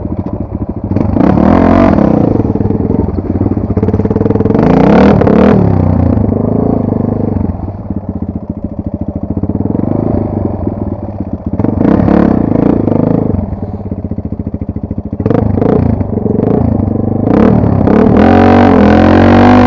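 Dirt bike engine revved hard in repeated surges, its pitch rising and falling, with quieter lulls between the bursts of throttle.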